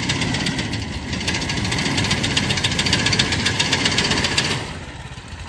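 Three-wheel mini reaper running while cutting standing wheat: its small engine and reciprocating cutter bar make a loud, fast, even clatter. The sound drops away sharply near the end.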